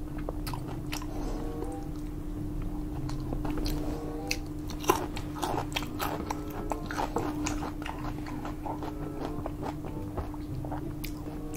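A person chewing and biting into air-fried pork belly close to the microphone, with scattered sharp clicks of eating sounds. A steady low hum runs underneath.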